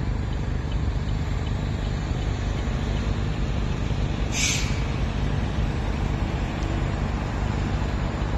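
A fire engine's engine runs with a steady low rumble. A short, sharp hiss like an air-brake release comes about four seconds in.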